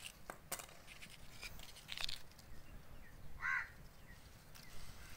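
Light rustling and clicking of lemon tree cuttings being handled, with a single bird call about three and a half seconds in.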